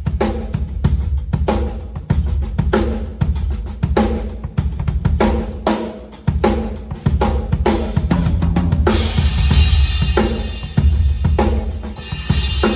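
TAMA Starclassic Bubinga drum kit with MEINL cymbals played in a steady groove: bass drum, snare and hi-hat strokes, with crash cymbals ringing out over the beat in the last few seconds.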